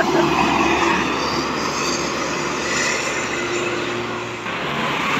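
Intercity coach passing close by at speed, its engine and tyres making a steady loud noise that eases off about four seconds in as it pulls away.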